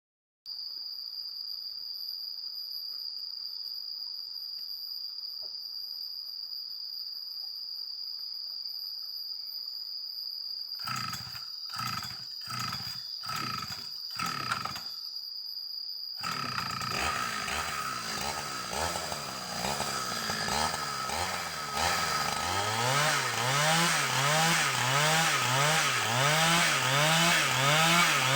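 Holzfforma chainsaw: after a steady high whine, five short bursts about a second apart, then the saw runs continuously and gets louder, its pitch rising and falling in a regular rhythm as it cuts timber into a beam.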